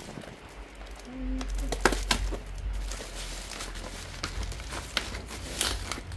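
Inflatable air-column plastic packaging being handled, crinkling and rustling with scattered sharp clicks.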